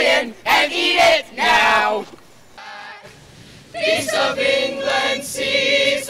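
A crowd of teenage voices chanting in short loud phrases. After a brief lull about two seconds in, the group sings together a cappella, holding longer notes.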